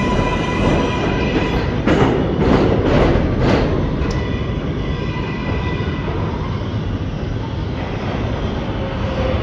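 An R188 subway train on the 7 line pulling out and running off into the tunnel. Its electric motor whine fades in the first couple of seconds, over a continuous rumble. A run of wheel clacks over rail joints comes about two to four seconds in.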